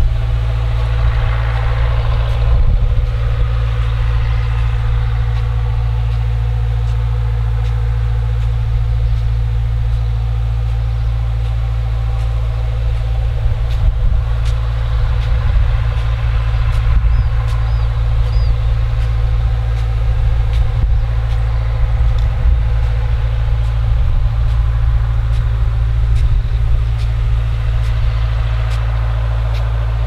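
John Deere four-cylinder turbodiesel engine driving a 1200 gpm irrigation pump at 40–45 psi for a center pivot, heard from nearly a quarter mile away as a steady low drone.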